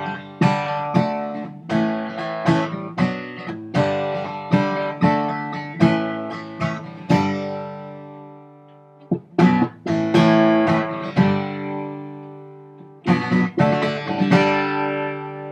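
Acoustic guitar strummed chords, about two strums a second, then slowing about halfway: chords left to ring and die away between a few more strums, with a final chord ringing out near the end.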